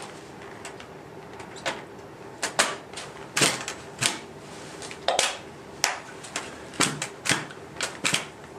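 A Dynafit Radical ST tech binding being worked with a ski boot: about a dozen irregular sharp clicks and knocks of metal and plastic as the boot goes into the pins and the binding is switched back to walking mode.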